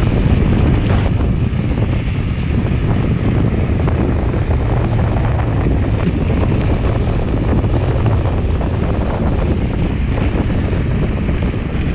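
Steady wind buffeting the microphone of a handlebar-mounted action camera on a moving mountain bike, a dense low rumble.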